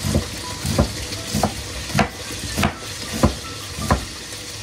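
Chef's knife slicing through an onion and striking a plastic cutting board, about seven even strokes roughly two-thirds of a second apart. Under it, a steady sizzle of chicken searing in the pot on the stove.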